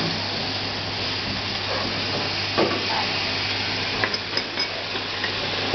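Food sizzling as it is stir-fried in oil in a wok, a spatula stirring and scraping against the pan, with a few short metallic clinks.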